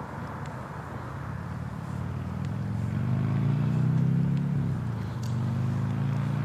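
A motor vehicle engine running close by, growing louder over the first few seconds. Its low hum bends in pitch about four and a half seconds in, then holds steady.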